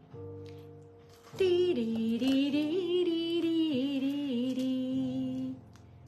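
A woman humming a wavering tune for about four seconds, starting a little over a second in, over quiet background music.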